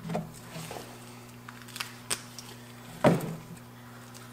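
Light ticks and taps of a dry-erase marker and a glass bracket against an aquarium's glass while a line is drawn, with one sharper knock about three seconds in, over a faint steady hum.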